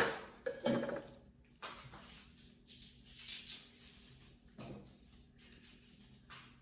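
Soft rustles and a few light knocks of kitchen food preparation, as a clove of garlic is picked up and handled on the work surface.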